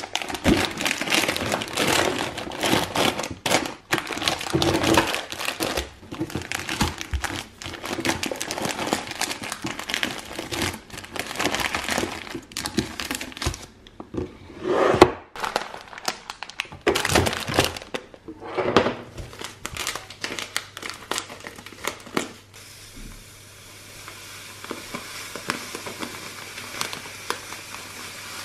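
Plastic food packets crinkling and rustling as they are handled and packed into plastic storage bins, with sharp clicks and knocks. From about two-thirds of the way through, this gives way to a quieter, even hiss of fine dry grain pouring from a bag into a glass jar.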